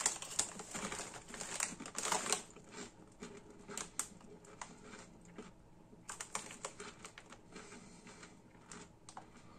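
Lorenz Crunchips potato chips crunching as they are bitten and chewed: an irregular run of crisp cracks, densest in the first couple of seconds and again about six seconds in.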